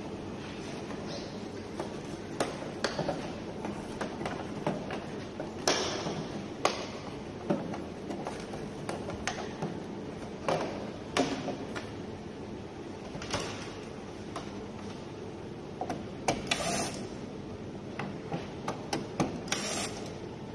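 Hand disassembly of an appliance: scattered clicks, knocks and light rubbing of tools and parts being handled, over a steady background hum.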